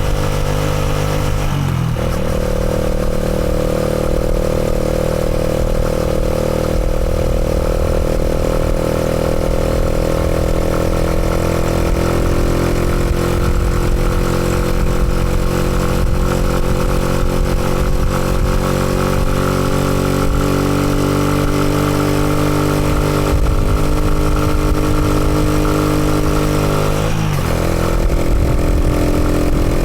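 Motorcycle engine running at a steady speed. Its pitch steps to a new level about two seconds in, drifts slowly, and changes again near the end.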